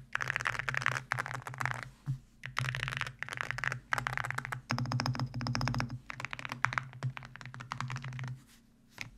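Fast typing on a custom mechanical keyboard with AKKO Matcha Green Pro V3 switches and ceramic keycaps, a tape-modded, foam-dampened build: several runs of rapid keystrokes broken by short pauses.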